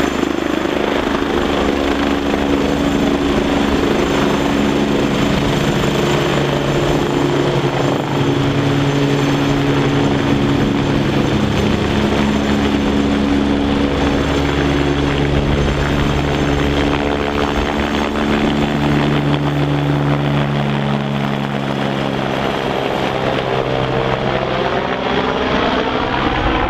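AgustaWestland AW109 helicopter lifting off from a low hover and climbing away: loud, steady rotor and turbine noise, with tones that slide in pitch as it moves away near the end.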